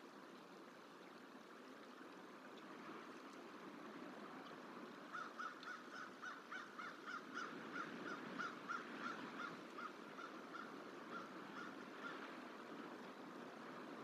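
American crow cawing in a rapid run of short harsh calls, about three or four a second, starting about five seconds in and tailing off near the end, over a steady faint outdoor hiss. The calls are the crow mobbing a juvenile bald eagle to drive it off its nesting territory.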